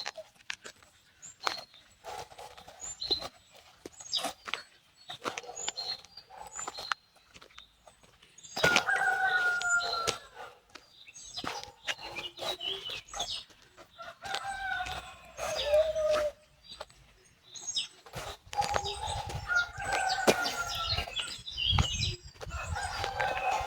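A rooster crowing several times, each crow one long call lasting a second or two, over the chirping of small birds and scattered sharp clicks. A low rumble joins in near the end.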